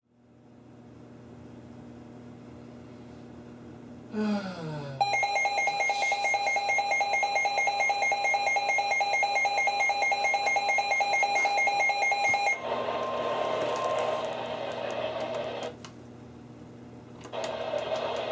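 NOAA weather radio receivers sounding an alert. A falling chirp comes about four seconds in, then a loud, pulsing electronic alarm tone runs for about seven seconds. It gives way to a brief steady tone and hissy radio static that cuts out and returns near the end.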